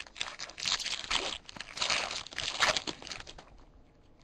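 Trading-card pack wrapper being torn open and crinkled: a run of crackly rips and crumples lasting about three seconds, then fading.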